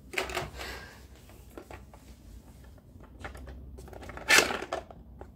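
Plastic clicks and knocks of a toy dinosaur ball gun being handled and fired, with a short sharp burst at the start and a louder one a little past four seconds in.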